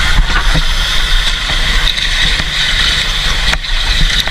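Kubota farm tractor's diesel engine running steadily at an even speed.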